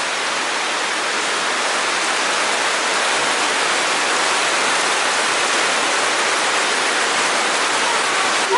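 Heavy tropical downpour, an even, steady hiss of rain that grows slightly louder.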